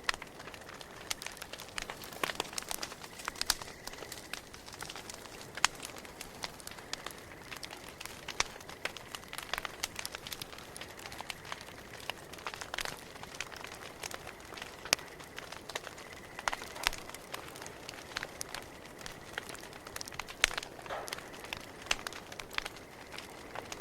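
Campfire burning, crackling with irregular snaps and pops of varying loudness over a soft hiss, a few sharper pops standing out.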